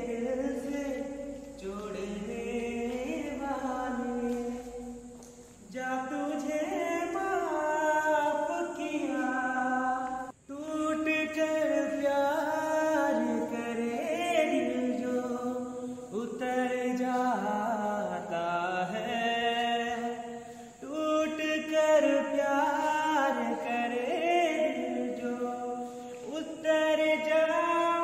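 A man singing solo, a melodic song with long held notes and no instruments heard. The singing breaks off for an instant about ten seconds in.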